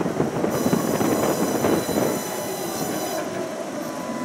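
Tram running on its rails with a rumble, and a high-pitched metallic squeal from its steel wheels that starts about half a second in and stops about three seconds in.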